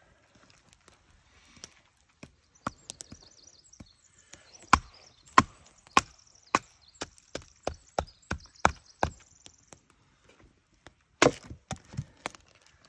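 Small hammer knocking a knife blade down through a piece of resin-soaked ponderosa pine fatwood to split it: a run of sharp knocks, about two a second, then a louder cluster of four knocks near the end as the piece splits open.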